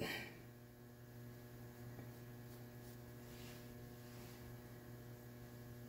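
Faint, steady electrical mains hum, with a few faint soft swishes of a paintbrush dabbing dye onto cotton fabric.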